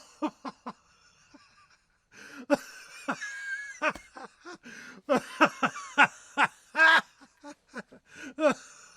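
A man laughing out loud in runs of quick ha-ha pulses. There is a brief lull about a second in, then a longer hearty laugh whose pitch rises and falls.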